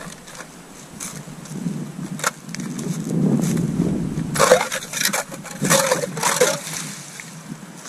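Hand-cranked ice auger drilling through lake ice: the blades grind and scrape steadily as it is turned, with a run of sharp crunches a little past halfway.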